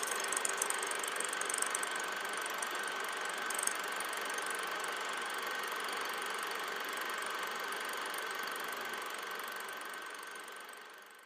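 Old film projector running: a steady mechanical whir with a high crackle in the first few seconds. It fades out near the end.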